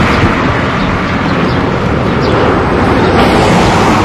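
Caterpillar excavator running on a demolition site, a steady rumble with a few faint light clinks.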